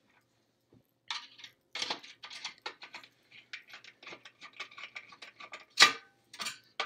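Phillips screwdriver clicking and scraping against the screws and lid of a Weber Q2000 gas grill as its front handle is screwed on. A run of short, irregular clicks starts about a second in, with one sharp, loud knock near the end.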